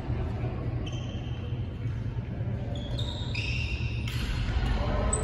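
Sports shoes squeaking on an indoor badminton court floor in short high squeals during a rally, over a steady low hum in the hall.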